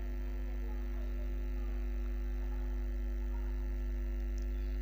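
Steady low electrical hum, like mains hum in the recording, with no other clear sound over it.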